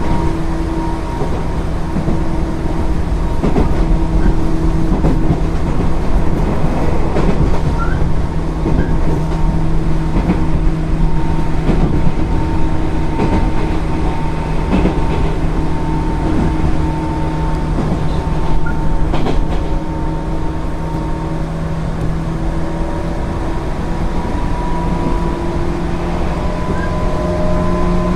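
JR 205 series 0-subseries electric train running on the rails, with the steady whine of its DC traction motors under field-added excitation control and the clicks of the wheels over rail joints. The whine climbs slightly in pitch toward the end as the train gains speed.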